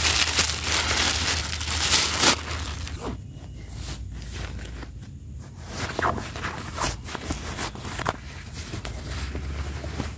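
Thin black plastic rubbish bag crinkling loudly as it is twisted and tied shut, for the first two seconds or so. Then softer rustling with scattered scrapes and clicks as a nylon backpack is stuffed and closed.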